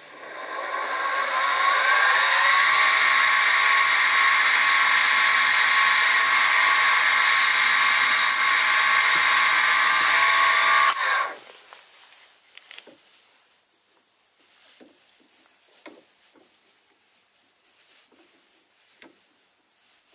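Sieg SX2P mini mill spindle motor spinning up with a rising whine over about two seconds, then running steadily while drilling a small hole, and switched off about eleven seconds in. Only faint small clicks follow.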